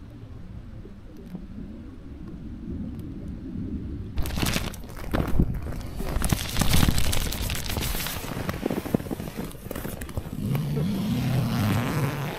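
A low rumble, then from about four seconds in loud rustling, crinkling and knocking as the camera is handled against the tent's nylon fabric and an inflatable sleeping mat.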